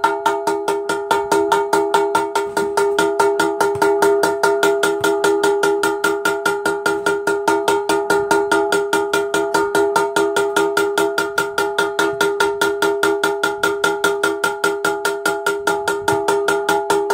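Small hammer tapping rapidly and evenly on a Kohler Courage engine's cracked aluminium crankcase, about five taps a second, each tap ringing with a bell-like metallic tone. The cracked wall is being tapped back flat so the crack can be sealed.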